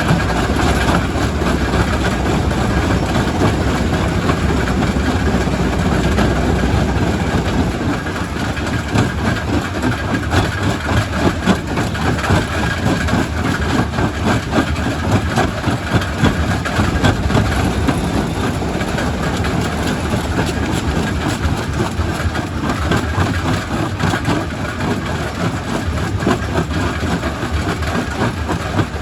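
Quarry primary rock crusher running and crushing stone: a steady, loud machine rumble thick with rapid knocks and grinding of rock. The low rumble is heavier for the first several seconds, then eases a little.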